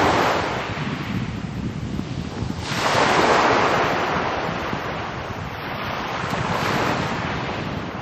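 Small sea waves breaking at the shoreline, each a rushing surge that fades as the water washes in. One is dying away at the start, a sharp one breaks about three seconds in, and a softer one comes near the end, over a low rumble of wind on the microphone.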